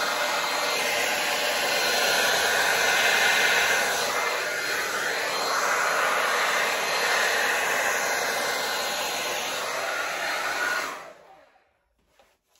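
Handheld hair dryer blowing steadily on wet acrylic paint to push it across a canvas, its rush swelling and dipping as it is swept over the surface. It is switched off about eleven seconds in.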